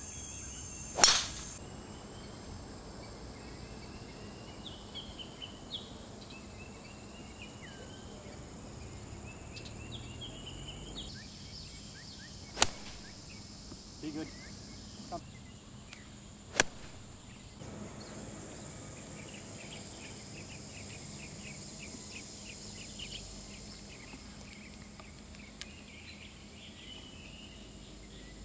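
Golf club striking a ball three times in all: a sharp crack about a second in, the loudest, then two more about twelve and sixteen seconds in. Birds and insects chirp steadily in the background.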